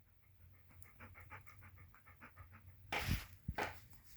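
Dog panting close by in quick, even breaths, which stop about two and a half seconds in. This is followed by a louder rustle and a couple of dull thumps.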